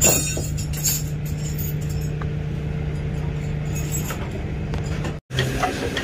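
Rollback tow truck's engine idling with a steady low hum, with a sharp click at the start. The sound drops out for a moment about five seconds in.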